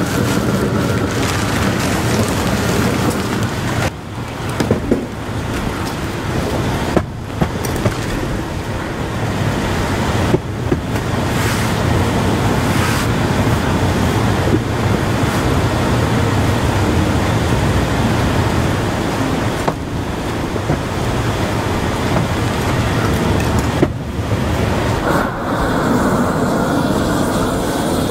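Propane roofing torch burning steadily as it heats torch-down modified bitumen membrane to weld the seams of two sheets together, dipping briefly a few times.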